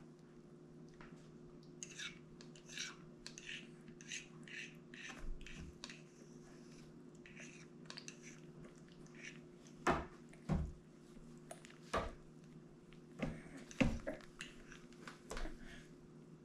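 A baby chewing a mouthful of durian, making a run of small wet mouth clicks and lip smacks. In the second half come several louder soft knocks, over a steady low hum.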